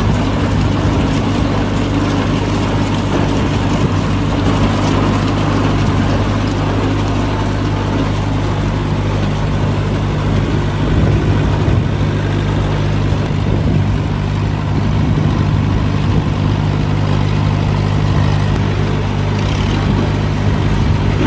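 Mobile log-debarking machine running with a steady low hum and continuous mechanical noise as it strips bark from a log.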